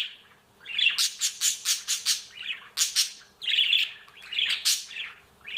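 Budgerigar chirping and chattering in quick runs of high, scratchy chirps, coming in several short clusters with brief pauses between them.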